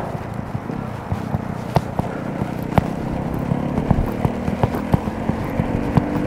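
Giant FastRoad Advanced 1 road bike rolling along a concrete path, heard through a handlebar-mounted camera: steady tyre and road noise with frequent rattling knocks from the bike and its mounts over bumps. A low steady hum joins in about three seconds in.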